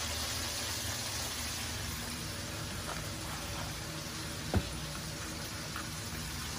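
Breaded chicken pieces frying in hot oil: a steady sizzle, with one sharp click about four and a half seconds in.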